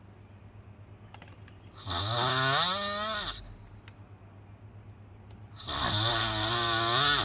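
Heavy snoring: two long snores about four seconds apart, each lasting about a second and a half and rising in pitch. A low steady hum sits underneath.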